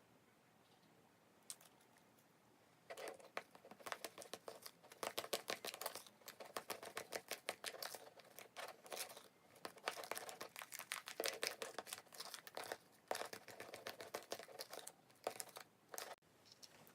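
Banana Kick corn puff snacks being crushed by hand: dense, irregular crackling and crunching. It starts about three seconds in, after a single click, and stops shortly before the end.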